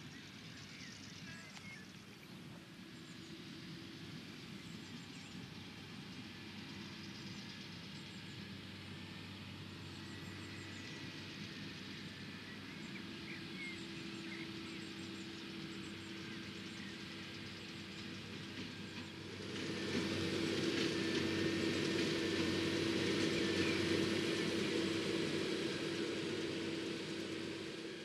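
Fendt 820 Vario tractor running steadily while pulling a New Holland BigBaler 1270, a deep even engine hum that grows slowly louder as it approaches, then becomes much louder about two-thirds of the way through as it comes close. Faint bird chirps are heard in the first half.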